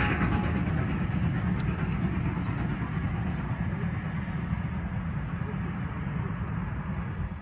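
GWR steam locomotive and its train of coaches climbing away, a steady rumble of wheels and exhaust fading slowly as the train recedes, with a few faint high chirps.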